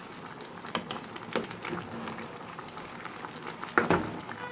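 Metal spoon stirring chunks of sweet potato porridge in a metal pot, with a few sharp clinks and scrapes against the pot; the loudest knock comes near the end.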